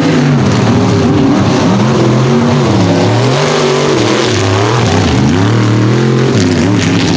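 Mud racing truck's engine revving hard at full throttle, its pitch rising and falling several times as it runs the dirt track.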